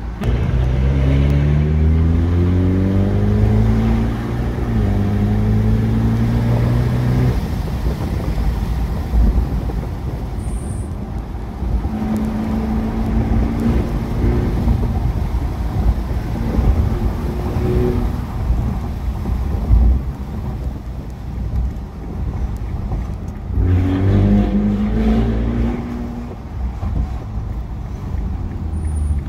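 Ferrari Portofino's twin-turbo V8, heard from inside the cabin, accelerating in fourth gear with the engine note climbing for the first several seconds. It then settles into cruising with road noise, and climbs again briefly near the end.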